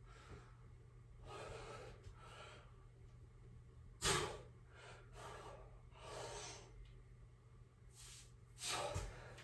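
A man breathing hard while doing pull-ups: about five forceful breaths, sharp exhales and drawn-in inhales, one every second or two, the sharpest about four seconds in.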